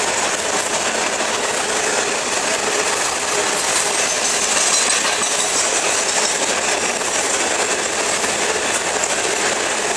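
Freight cars of a loaded coal train rolling past at speed: steel wheels on the rails in a steady, dense clatter.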